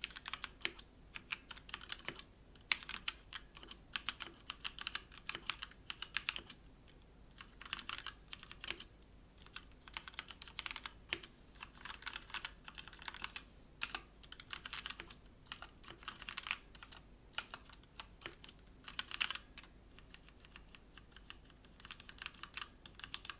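Motospeed K87S mechanical keyboard being typed on: quick runs of key clicks with short pauses between them.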